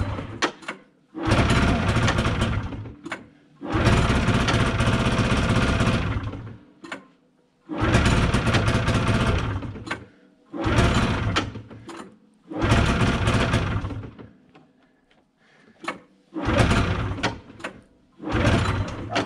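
1990 Yamaha V-Max 540's two-stroke twin being pull-started: about seven times it catches, runs for one to three seconds and dies. It fires on only one cylinder, which the owner traced to a plugged fuel pickup line starving the other carburettor.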